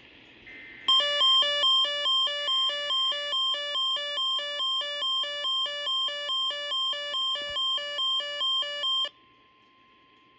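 Weather radio receiver's electronic alert alarm: a loud hi-lo two-tone beeping, about two alternations a second, that starts about a second in and cuts off suddenly about eight seconds later. Faint radio static and a faint steady tone remain after it stops.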